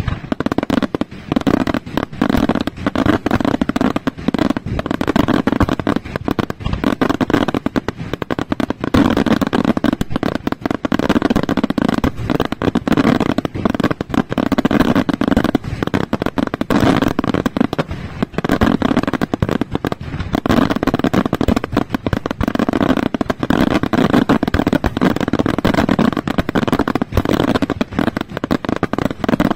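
Daytime aerial fireworks display: a dense, unbroken barrage of bangs and crackling from many shells bursting overhead, several reports a second.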